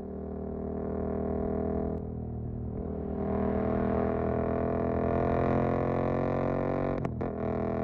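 Suzuki GSX-8S parallel-twin engine through a Jeskap EVO aftermarket exhaust, running under way with a deep, steady note. The pitch steps down about two seconds in, then climbs slowly as the bike accelerates, and the sound breaks briefly about seven seconds in.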